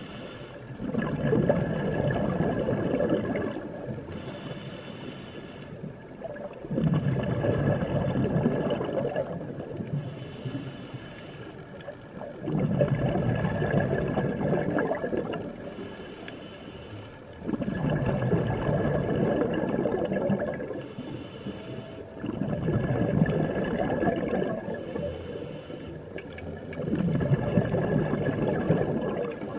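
Scuba diver breathing through a regulator underwater: a short hiss on each inhale, then a long rush of exhaled bubbles, repeating about every five seconds, six breaths in all.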